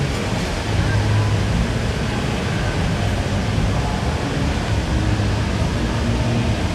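Steady city background noise: a constant rumble and hiss, with a low hum that swells and fades.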